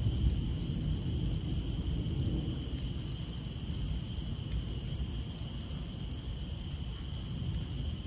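Heavy rain falling, heard as a dense, unevenly flickering low noise, with a steady high-pitched tone running above it.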